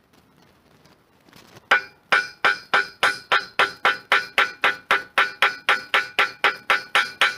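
Hammer tapping steadily at about three blows a second, peening over the head of a small aluminium rivet set through folded powder-coated GI sheet. Each blow rings metallically. The tapping starts about a second and a half in.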